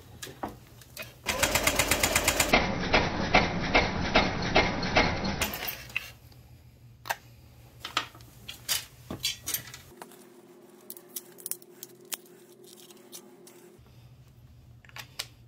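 A cordless drill/driver runs in a loud, fast, even rattle for about four seconds while the scooter's body panels are being taken off. It is followed by scattered light clicks and clinks of tools and metal parts.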